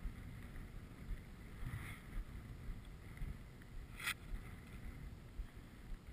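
Wind buffeting the camera's microphone: a low, gusting rumble, with one short sharp click about four seconds in.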